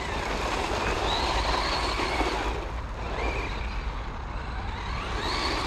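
FTX Crossbow 1/10 RC truggy driving, its low-kV brushless motor whining up and down in pitch a few times with the throttle, over a steady rushing noise of tyres and a low rumble.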